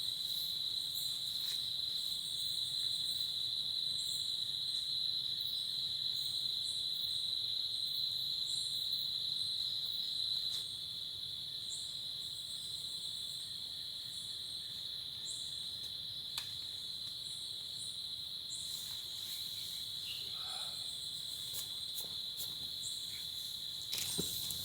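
Insects trilling in one steady, high-pitched drone that eases slightly about halfway through; a few light knocks near the end.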